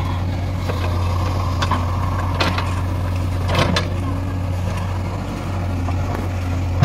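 JCB 3DX Eco backhoe loader's diesel engine running steadily while the backhoe bucket drags and spreads loose soil. A few sharp knocks from the bucket and arm stand out, about two and a half and three and a half seconds in.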